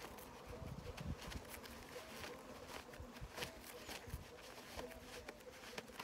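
Faint buzzing of honeybees flying around an open-air hive, a low wavering hum, with scattered small rustles and knocks of handling.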